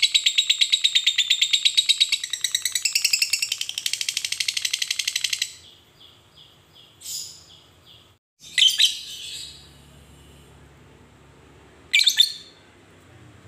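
Fischer's lovebird chattering in one long, rapid trill of evenly pulsed notes (the 'ngekek'), which stops about five and a half seconds in. Then come a few faint short chirps and two short sharp calls, one near nine seconds and one near twelve.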